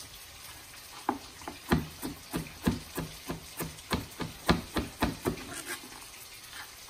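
Chef's knife chopping onion on a plastic cutting board: a steady run of quick knocks, about three or four a second, starting about a second in and stopping near the end.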